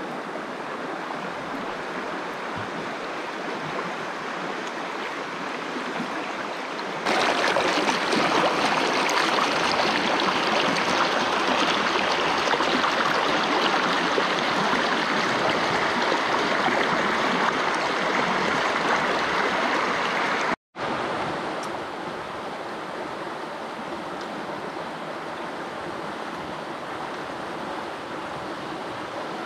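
A stream of running water, a steady rush with no pauses. It jumps louder suddenly about seven seconds in, cuts out for an instant about twenty seconds in, then carries on quieter.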